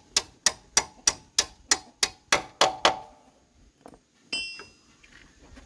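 Hammer blows on metal: a steady run of about ten ringing strikes, roughly three a second, that stops about three seconds in. A brief high-pitched chirp follows about a second later.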